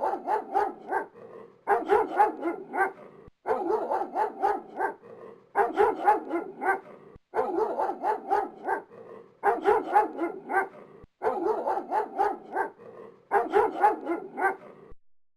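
A dog barking in quick runs of barks. The same short barking clip repeats about every two seconds and stops shortly before the end.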